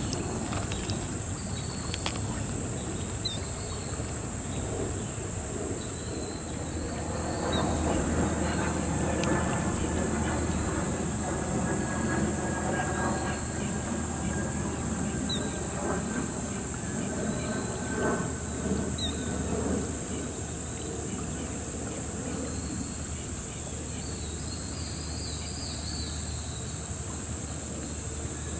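Steady high-pitched insect drone over a low rumble that swells between about 7 and 20 seconds in, with a few faint short bird calls.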